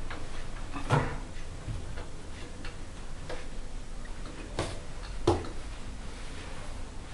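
Scattered light taps and clicks from hands handling threads and pins on a macramè pillow, with three sharper clicks: one about a second in and two more about a second apart near the five-second mark.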